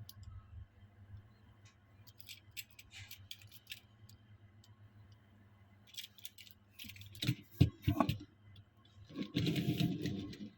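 Small hard objects being handled during the unboxing of Tomica die-cast toy cars. There are light clicks and taps, a sharper knock past the middle, then about a second of denser scraping and rattling near the end.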